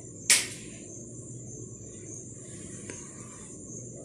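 Chalk on a blackboard: a sharp tap about a third of a second in as the chalk strikes the board, then faint scratchy chalk strokes and a smaller tap near three seconds. A steady high-pitched whine runs underneath.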